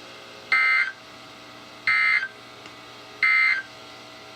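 NOAA Weather Radio SAME end-of-message code: three short, identical buzzing data bursts about a second apart, over the receiver's steady hiss. They mark the close of the flood-warning message.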